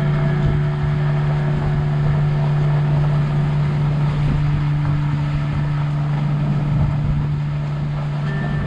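Wind rumbling and rushing on the camera microphone, under a steady low drone of background music with a few held notes coming in during the second half.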